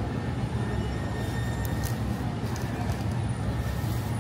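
Steady city street noise at night: a continuous low rumble of traffic and engines, with a few faint brief clicks.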